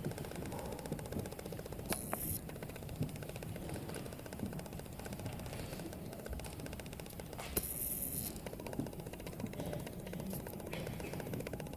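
Quiet concert-hall ambience before the orchestra starts: a low rustle and shuffle with scattered faint clicks and two brief hissing swishes.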